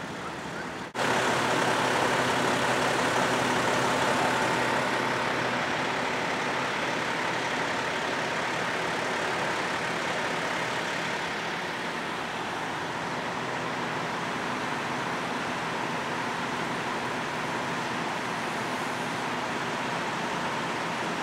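Fire engine running steadily at idle, a constant engine drone that jumps abruptly louder about a second in.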